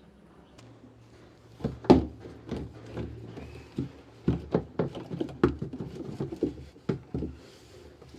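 An irregular run of sharp knocks and clicks, the loudest about two seconds in, over a faint low hum.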